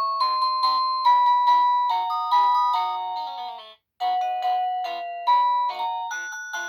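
EMASTIFF wireless doorbell playing its polyphonic electronic ringtones, a bright two-voice chime melody of a few notes a second. The tune stops abruptly a little over halfway through, and after a brief silence the next ringtone begins.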